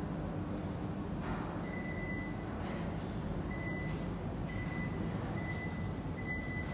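Steady low background rumble, with a faint high, steady tone sounding on and off in short stretches.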